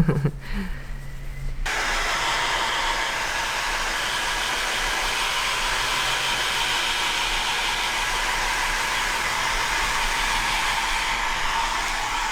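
Hand-held hair dryer switched on about a second and a half in, then blowing with a steady rushing noise until it cuts off suddenly at the end.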